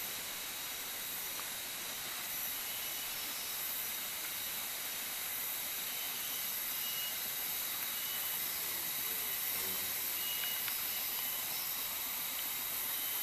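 Steady high-pitched drone of tropical forest insects, with a few brief faint chirps scattered through it.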